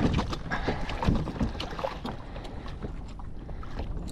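Fishing gear being handled on a kayak: irregular clicks and knocks of rods and tackle, busiest in the first second or so, over low wind rumble on the microphone.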